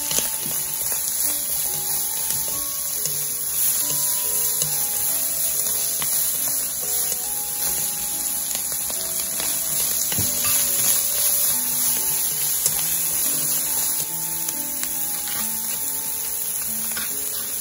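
Steady sizzle of sliced onion, sausage and green pepper stir-frying in oil in a frying pan, under light background music with a simple melody of short notes.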